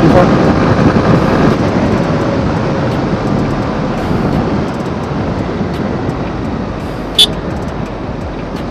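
Yamaha R15M's 155 cc single-cylinder engine and wind rush heard from the rider's seat as the bike decelerates, the sound fading steadily as it slows. A short sharp click about seven seconds in.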